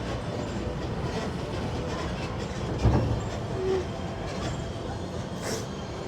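Steady low rumble of a stopped tram idling as passengers get up to leave, with one dull thump about three seconds in.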